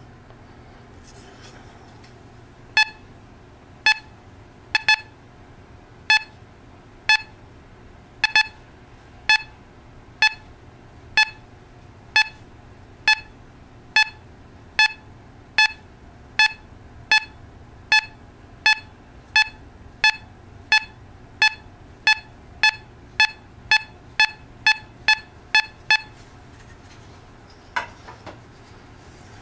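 Teknetics Gamma 6000 metal detector giving short, same-pitched target beeps as a coin is swept over its search coil. They come about once a second and quicken to about two a second shortly before the end, followed by a fainter, different-sounding signal.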